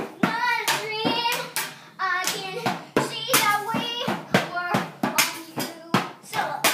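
Children banging toy drums with sticks in an uneven, rapid rhythm, with a child singing along over the hits.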